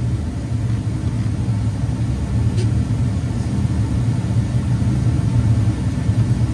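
2014 Dodge Durango engine idling steadily with a low rumble, with a couple of faint clicks from the hose and fittings being handled.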